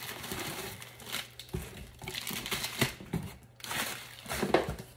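Plastic packing material and bubble wrap crinkling and rustling as it is pulled out of a cardboard box, with a few brief thumps.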